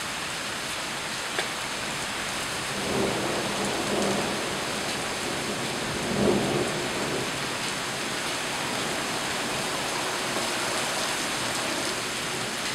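Heavy rain pouring down steadily in a severe thunderstorm, with low rumbles of thunder swelling about three seconds in and again, louder, around six seconds in.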